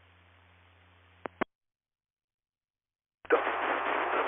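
2-meter FM repeater audio: faint hiss over a steady low hum while the carrier is up, cut off by two clicks about a second and a half in as the signal drops, then dead silence. About three seconds in, a loud rush of FM static as the next station keys up.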